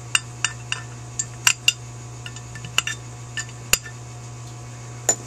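Metal clip and tool clinking and tapping against a Holley 4000 carburetor's aluminium float bowl as the clip is worked down over the accelerator pump check ball: about a dozen sharp, irregular clicks over a steady low hum.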